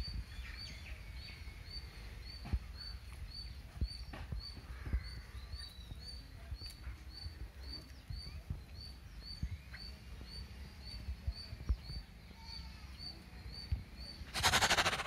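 Village outdoor ambience: a bird repeats a short high chirp about twice a second, with other birds calling and a low rumble underneath. Near the end comes a loud hissing burst lasting under a second.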